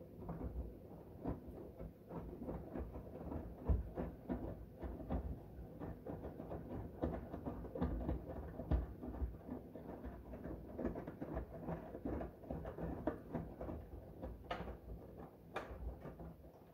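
Miele WKR570WPS front-loading washing machine drum turning a wash load: soapy water sloshing and wet clothes thudding irregularly, with a few sharper clicks near the end.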